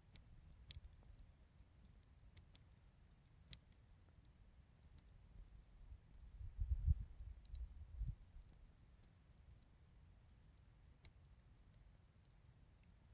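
Burning firewood crackling quietly, with scattered sharp pops and snaps. A low rumble swells for a couple of seconds around the middle.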